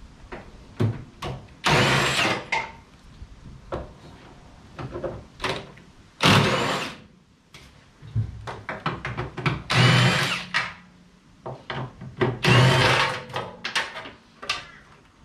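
Cordless impact wrench with a 13 mm socket running in four bursts of about a second each, undoing the bolts that hold a VW Super Beetle's fuel tank; between the bursts come small clicks and knocks of handling the tool and bolts.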